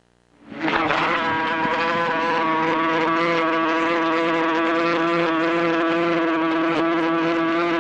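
Bee buzzing in a steady, even drone that fades in about half a second in after a moment of silence.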